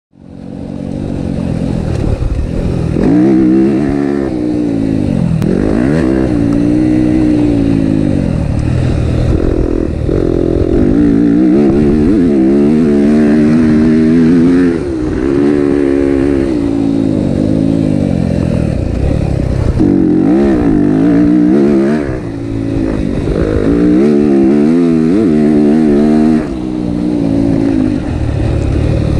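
Yamaha motocross bike's engine heard from on board, revving up and falling back over and over as the throttle is worked around the track, with brief drops where it is shut off. It fades in over the first second.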